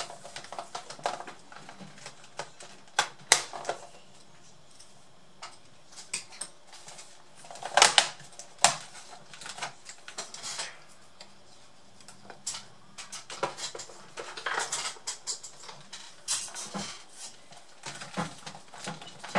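Scattered plastic clicks, taps and knocks as fingers work at the plastic bottom cover of a Samsung NP550 laptop, with the loudest knocks about three and eight seconds in.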